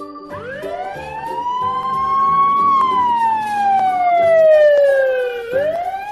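Cartoon ambulance siren sound effect. A single slow wail rises for about two and a half seconds, falls for about three, and starts rising again near the end.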